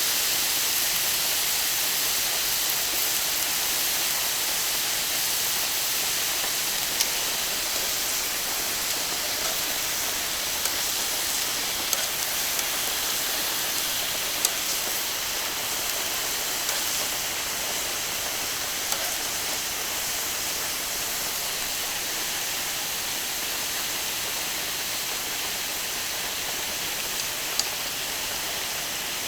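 Beef skirt (harami) sizzling on a hot iron griddle plate: a steady hiss with scattered small pops, easing slightly over time.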